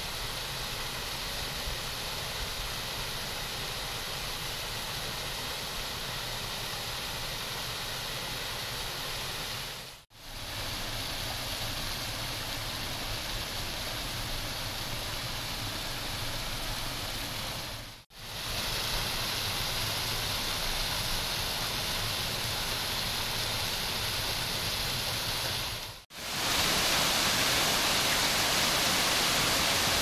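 Steady rush of water from a partly frozen waterfall, heard in several takes that each fade out briefly about ten, eighteen and twenty-six seconds in. The last take is louder and hissier.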